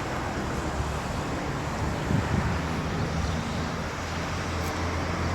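Steady low rumble of vehicle noise, with wind on the microphone.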